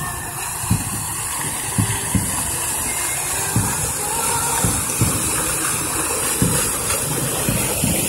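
Fountain water jets spraying and splashing into the basin, a steady hiss of falling water. Short low thumps come about once a second.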